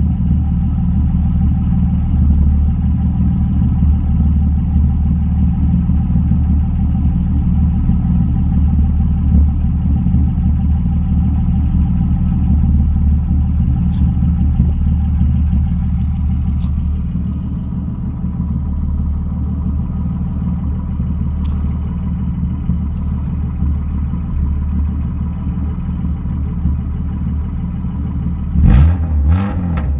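BMW M3 engine idling steadily with a rough, not-quite-even idle that the owner calls not perfect. Near the end the engine note rises and falls briefly.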